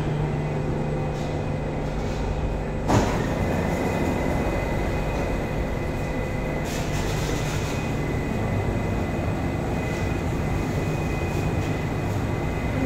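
Cabin sound of a Kawasaki-CRRC Qingdao Sifang CT251 metro train running in a tunnel and pulling into a station: a steady rumble with a thin, steady high whine. A single sharp knock comes about three seconds in.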